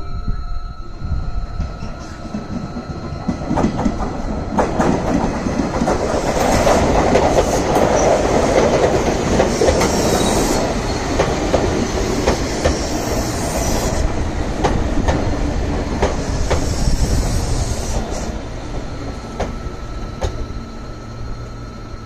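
Red Meitetsu electric train going by on the Mikawa Line. It grows louder over the first few seconds and is loudest through the middle, with the wheels clattering over rail joints and a high-pitched squeal at times. It fades near the end.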